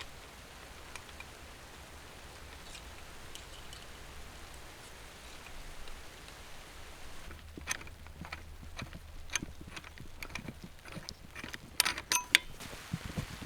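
Soft steady rain hiss with scattered taps and knocks, which come more often from about halfway through and cluster near the end.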